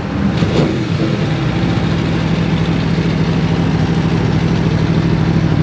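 Aprilia Tuono V4 1100 Factory's V4 engine, fitted with a full Akrapovic carbon racing exhaust, idling on the dyno. Its revs drop and settle into a steady idle about a second in.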